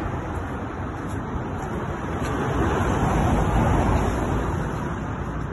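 A car passing on the street: a rumble of tyres and engine that swells about three to four seconds in, then slowly fades.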